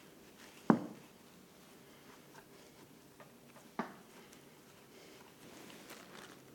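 Quiet room tone broken by two short knocks about three seconds apart, the first much louder: hard objects set down or bumped on a work table while clay and a plaster mould are handled.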